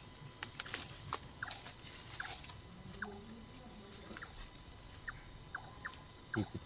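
Night-time outdoor ambience: a steady high insect drone, with short chirps or clicks scattered irregularly throughout and a faint low hum partway through.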